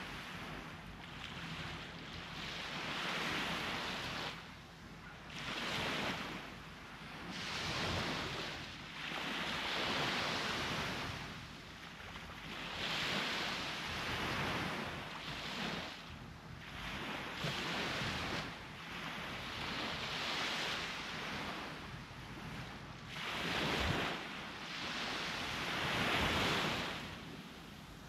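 Sea surf breaking on the shore, each wave swelling and washing back every few seconds, with a low wind rumble on the microphone.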